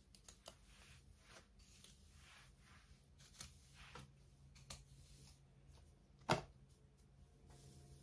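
Faint rustling of a comb drawn through the curls of a human-hair wig, stroke after stroke, with small clicks and one sharper tap about six seconds in.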